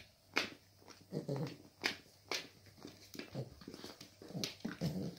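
Cavalier King Charles Spaniels play-fighting: short low play growls and grunts come in several bouts, among a string of short sharp clicks.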